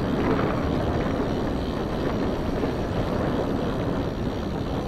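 Mountain bike rolling downhill over a grassy dirt track: a steady rushing rumble of wind on the handlebar camera's microphone mixed with tyre noise.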